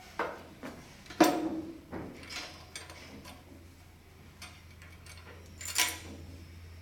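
Steel-on-steel clanks and clicks as a pallet jack's handle is seated in its pump head and pinned. The loudest clank comes about a second in and rings briefly, another comes near the end, and lighter clicks fall between them.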